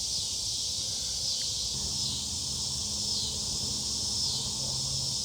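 Insects chirring outdoors in a steady high-pitched chorus that pulses about once a second. A low steady hum comes in about two seconds in.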